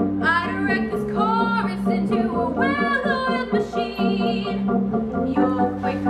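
A musical theatre song: a high voice singing with vibrato over instrumental accompaniment.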